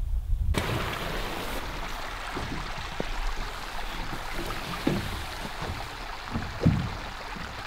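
An aluminum canoe being handled on the shore, giving a few short dull knocks, the loudest near the end, over a steady rushing hiss that starts about half a second in.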